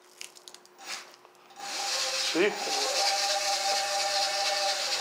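E-bike conversion hub motor spinning the front wheel under the thumb throttle. After a few faint clicks, it starts about a second and a half in with a steady whine and hiss. This is the motor's first run after wiring, and it works.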